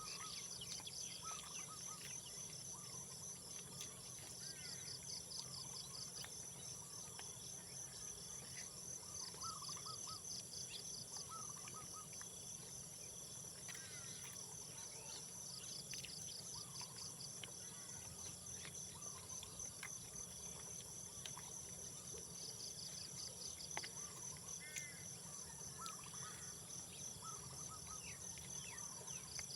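Insects trilling steadily, with one insect's pulsing chirp coming in bouts every several seconds, and birds giving scattered short chirps.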